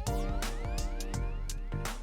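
Background electronic music with a steady beat of about four hits a second over held tones, and a rising pitched sweep.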